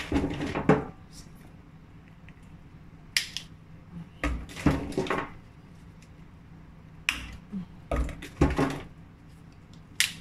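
Stalks of dried shiitake mushrooms being twisted and snapped off by hand. Short bursts of sharp cracking and crunching come every one to three seconds, about six times.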